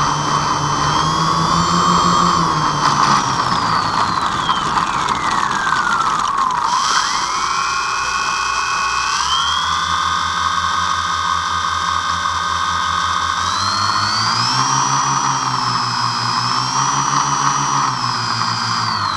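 Onboard sound of a twin-motor RC model airplane's motors and propellers whining as the throttle is worked on the ground. The pitch slides down to a low idle about a third of the way in, then climbs again in steps from about halfway and wavers up and down near the end.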